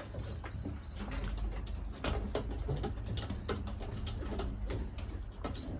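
Racing pigeons in a loft, a male courting a hen: low cooing, scattered scuffs and wing flutters, and short high chirps.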